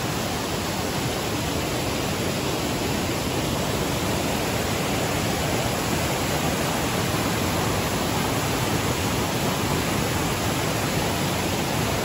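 Waterfall pouring over rocks: a steady, even rush of falling water.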